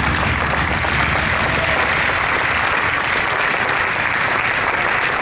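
Audience applauding, a steady sustained clapping from a crowd.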